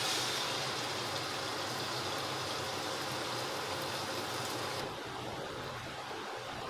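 Beaten egg sizzling as it is poured into a hot, oiled stainless-steel wok, with a steady low hum underneath. The sizzle cuts off abruptly a little over halfway through, leaving the hum.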